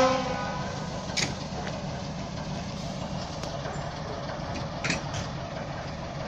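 ČKD T435 diesel locomotive engine running steadily with a low hum. The last moment of a train horn blast cuts off just as it begins, and there are a couple of short clicks.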